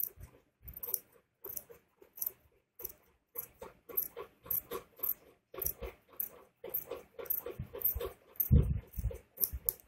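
Tailor's scissors cutting through folded cloth: a steady run of crisp snips, about two a second, as the blades close again and again.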